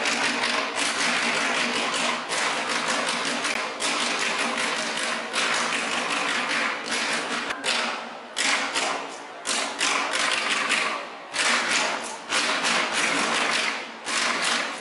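Ensemble of drumsticks beating on improvised taiko drums made from inverted plastic water bottles, a dense run of rapid strikes with a few brief pauses.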